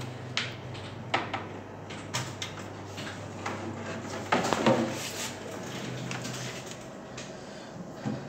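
Scattered clicks and knocks of network cables and a small firewall unit being handled and moved on a desk, with the loudest cluster about halfway through.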